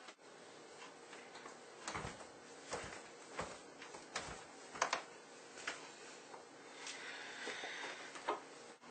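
Scattered light knocks and clicks, about one a second, with a couple of sharper ones.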